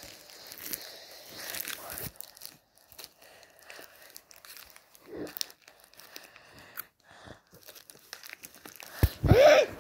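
Close rustling and crinkling in uneven spurts, then a short, loud sound near the end that rises in pitch.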